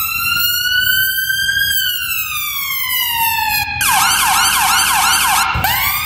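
UK ambulance siren: one long wail that rises slowly and then falls, switching about two-thirds of the way through to a fast yelp of about five sweeps a second, and to slower sweeps near the end.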